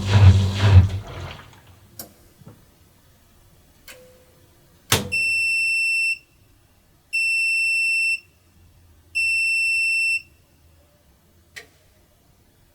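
Washing machine drum slowing and falling quiet, followed by a few clicks and a clunk, then three long high-pitched beeps about a second each: the machine's end-of-cycle signal. A last click comes near the end.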